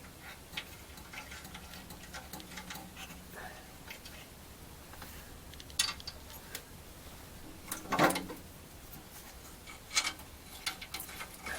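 Small metallic clicks and clinks of nuts being started by hand onto the studs of an exhaust flex pipe's front flange. There is one louder metal clank about eight seconds in and a few lighter knocks near the middle and end.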